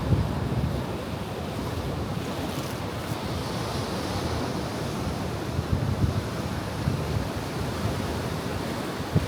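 Ocean surf breaking and washing against a rocky shore in a steady wash of noise, with a brighter hiss swelling about three to four seconds in. Wind buffets the microphone in low rumbling gusts.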